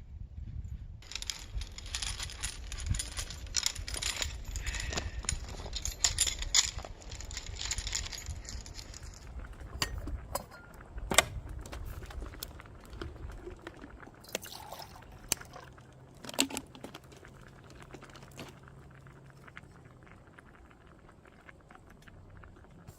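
Objects being handled: a stretch of dense rustling and rattling with many small clicks for the first several seconds, then scattered single clinks and knocks, growing quieter toward the end.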